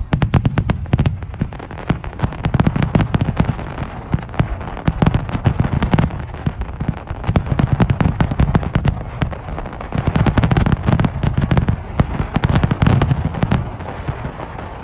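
Aerial fireworks bursting in quick succession: a dense run of sharp cracks and crackling over deep booms, thinning out near the end.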